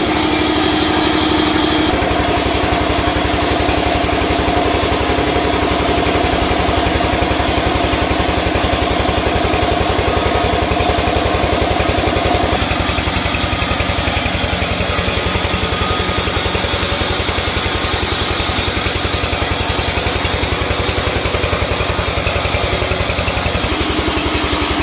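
Sawmill saw running steadily while a squared timber beam is fed through it lengthwise. It makes a continuous pitched hum with a rapid, even pulse, and its tone shifts about halfway through.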